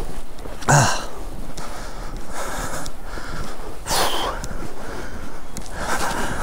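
A man breathing hard while trudging through deep snow, with footsteps crunching in the snow at irregular intervals. The two loudest bursts come about a second in and about four seconds in.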